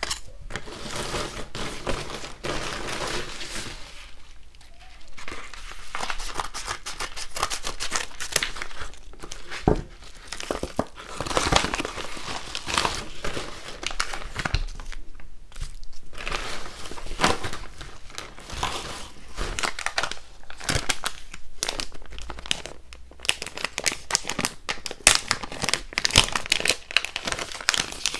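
Plastic packaging crinkling as hands handle and open a clear plastic sleeve, in stretches of crinkling with short pauses and occasional sharp clicks.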